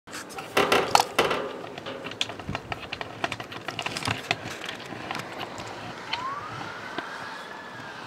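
Fire engine siren starting a wail, faint, rising in pitch about six seconds in and then holding high. Before it, loud knocks and clicks from the camera being handled.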